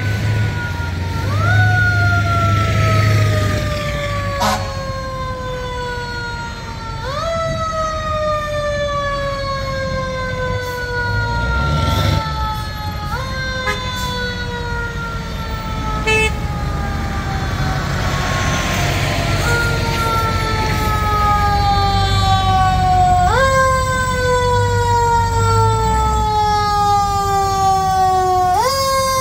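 Fire engine siren on an emergency response: each wail jumps up quickly in pitch and then slowly falls away, repeated about every five to six seconds, over the truck's low engine rumble.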